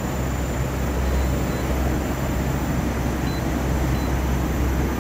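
Sigma VRF air-conditioning outdoor unit running, a steady low hum with an even hiss over it.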